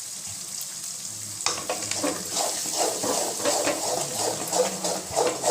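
Eggs sizzling as they fry in a pan of masala. About a second and a half in, a spatula starts stirring and scraping the pan in quick, irregular strokes, breaking the eggs into small crumbles.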